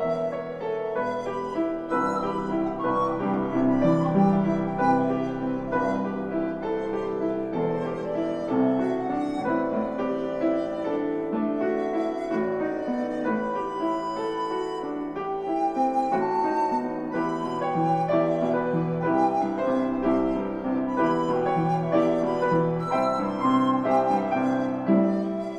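Recorder and piano playing a classical-style concert piece, the piano moving through many-noted figures under a sustained recorder line.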